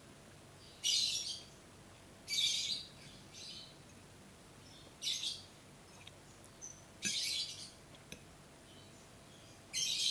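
Close-up eating sounds of fried instant noodles being slurped and chewed: five short, sharp, hissy bursts a couple of seconds apart, over faint background hiss.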